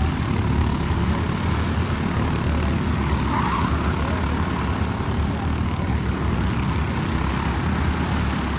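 Racing kart engines running, a steady low drone.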